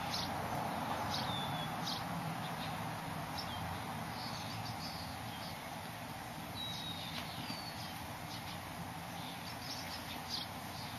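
Scattered short, high bird chirps, a few with quick downward glides, over a steady low background noise outdoors.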